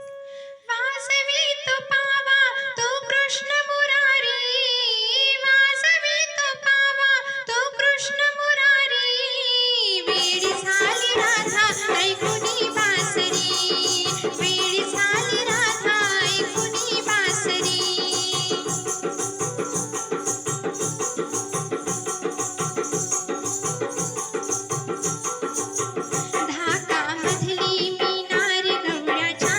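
Music of a Marathi gavlan devotional song: a single ornamented melody line plays alone for about ten seconds, then a full band with fast, steady percussion comes in.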